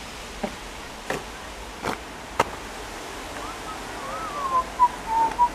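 A steady outdoor background hiss with a few soft knocks in the first half. Then, from about four seconds in, someone whistles a short wavering run of gliding, held notes.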